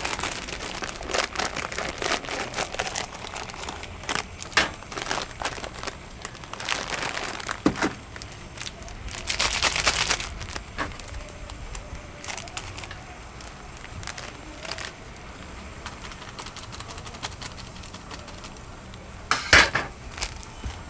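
Instant-noodle packets crinkling as they are handled, in irregular rustles and clicks. A longer stretch of crackling comes about nine to ten seconds in, and a sharp burst near the end.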